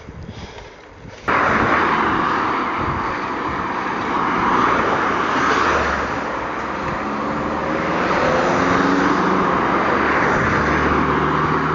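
Loud, steady rushing noise of riding a bicycle along a road, starting abruptly about a second in, with a passing car's engine hum rising in pitch in the second half.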